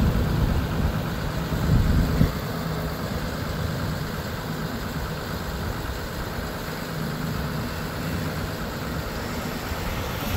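Cummins 6.7-litre turbo diesel running at a steady raised idle to drive the PTO hydraulic pump while the bucket boom is raised, with a brief louder swell about two seconds in.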